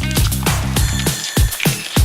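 Electronic dance music with a fast, steady drum beat of about four strokes a second; the bass line drops out a little over a second in, leaving the drums.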